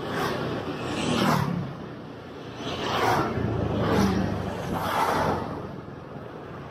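Road and traffic noise from a motorcycle ride: vehicles running and passing, the sound swelling and fading several times.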